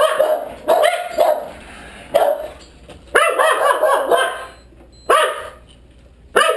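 Eskimo dogs barking in short bouts, about six in a row with pauses of about a second between them. It is excited barking while they are held back with a "wait" cue.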